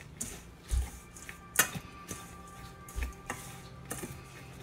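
Wire whisk stirring dry flour and rolled oats in a stainless steel bowl, with several sharp ticks as the wires strike the metal side, the loudest about a second and a half in. Soft background music plays underneath.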